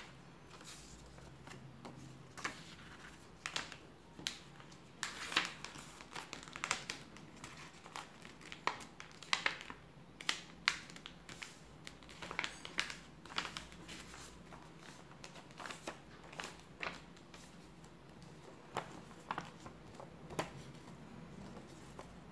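A sheet of paper being folded and creased by hand into a paper airplane: short, crisp rustles and crackles at irregular intervals as the folds are pressed and handled.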